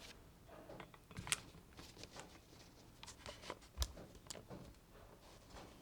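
Scattered light clicks and knocks at uneven intervals, the sound of a mechanical keyboard and its parts being handled, with a sharper knock about 1.3 s and 3.8 s in.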